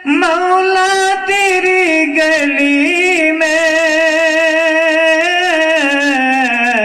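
A man singing a devotional Urdu song into a microphone, drawing out one long ornamented note that wavers up and down and slides lower near the end.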